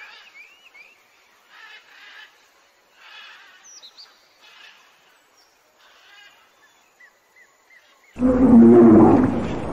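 Faint bird chirps over near-quiet, then about eight seconds in a large animal starts a loud, pitched roar.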